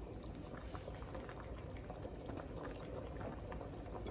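Pot of okra soup boiling, a steady bubbling with many small pops.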